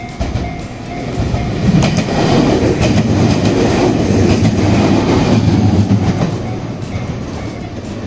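JR Shikoku 7000 series electric train passing close by. A heavy rumble builds over the first two seconds, with wheels clacking regularly over the rail joints at its loudest, then it fades near the end. Under it, at the start and the end, the level crossing's warning bell rings in steady pulses.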